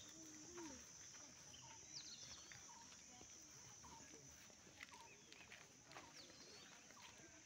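Faint outdoor ambience: scattered short bird chirps over a steady high insect buzz.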